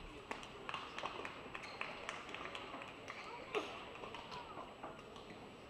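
Badminton rally: rackets striking the shuttlecock and players' shoes on the court, a run of sharp taps with the loudest hit about three and a half seconds in, over a low arena background.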